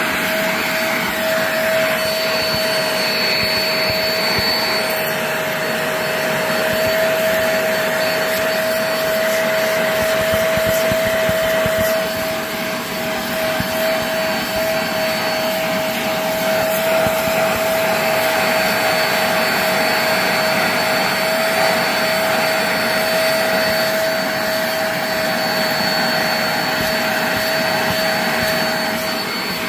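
Vax Platinum SpotWash upholstery spot cleaner's suction motor running steadily, with a steady whine over the rush of air, while its brush nozzle is worked over a fabric sofa cushion.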